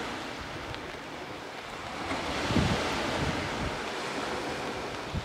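Small sea waves breaking and washing up onto a pebble shore. The wash swells louder about halfway through as a wave comes in, with wind rumbling on the microphone.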